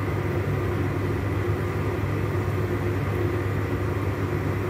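Steady low mechanical hum with a rushing hiss from a running kitchen appliance beneath a pot of soup that is heating but not yet boiling.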